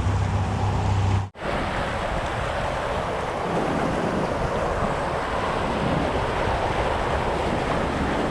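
Mountain creek water rushing steadily, with wind buffeting the microphone as a low rumble at first. The sound drops out for an instant about a second in, then the water noise goes on evenly.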